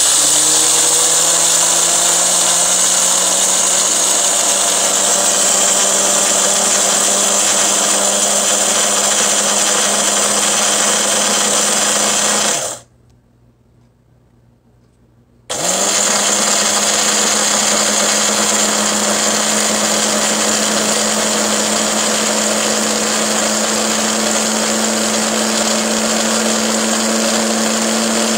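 Electric blade grinder of a PowerXL Grind & Go coffee maker grinding whole coffee beans: the motor spins up with a rising whine and runs steadily for about twelve seconds, stops for about three seconds, then starts again and runs about as long.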